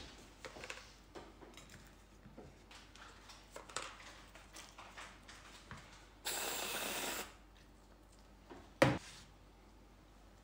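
Soft scrapes and taps of ice cream rolls being handled and packed into a paper cup, then an aerosol can of whipped cream spraying in one steady hiss of about a second. A single sharp knock follows, the loudest sound.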